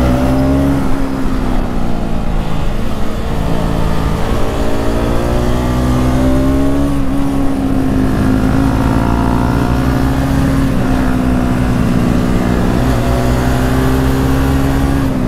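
Motorcycle engine running at high, fairly steady revs under way, its pitch dipping slightly a few times, over a rush of road and wind noise.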